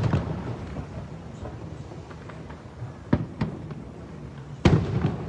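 Fireworks shells bursting: a boom dying away at the start, two smaller cracks a little past three seconds in, and another loud boom near the end, over a steady low background rumble.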